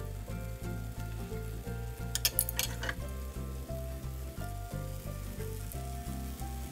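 Background music with a steady bass beat over potato fritters sizzling in shallow oil in a frying pan. A short clatter about two seconds in.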